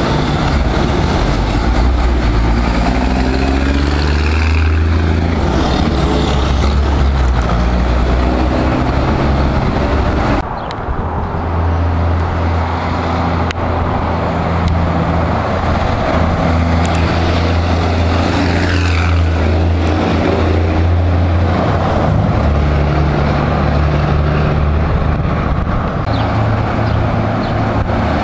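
DAF 95 ATI 430 truck's straight-piped diesel engine running loudly under load as the truck drives up, its engine note rising and falling in the first few seconds and then holding steadier. The sound breaks off abruptly and picks up again about ten seconds in.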